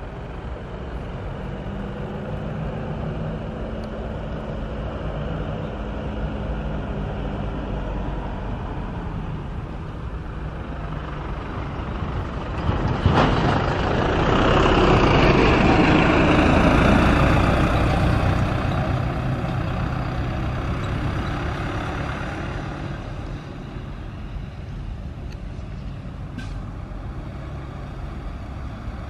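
Road vehicle noise: a steady engine rumble, joined about a third of the way in by a sudden loud rush that swells and then fades over several seconds, like a large vehicle passing close by.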